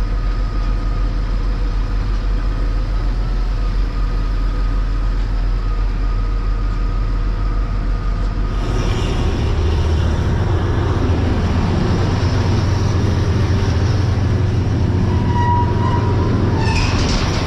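Heavy farm diesel engine running steadily at working revs. About eight or nine seconds in, the sound switches to a louder, rougher engine drone.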